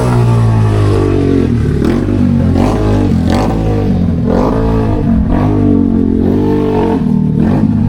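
An engine running steadily, its revs rising and falling, with a few light clatters.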